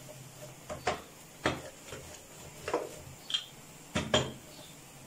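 About six scattered light knocks and taps against a plastic tray as stuffed radish paratha dough is pressed and worked out flat.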